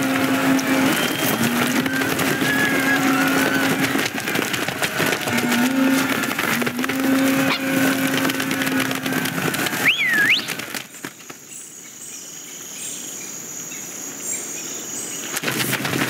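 Cartoon sound effects: a busy clatter of many small scurrying feet and bustle, over which a low two-note horn call sounds twice. About ten seconds in comes a short whistle that swoops up, down and up again. After that the sound drops to a quieter hiss.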